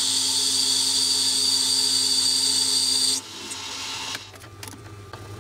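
Metal lathe running and turning a brass guide roller, with a steady high-pitched whine. The whine cuts off suddenly a little after three seconds and the chuck runs on more quietly, with a few light clicks near the end.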